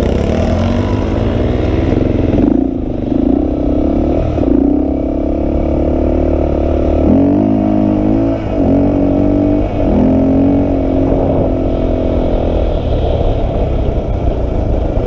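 Honda 350X's engine running hard under throttle, its pitch wandering up and down. From about seven seconds in it climbs three times in quick succession, with short dips between, as the quad accelerates.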